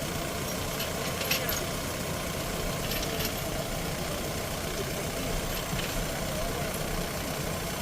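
Diesel engine of farm machinery running steadily at a low idle-like pace, with a few brief sharp clinks about a second and three seconds in.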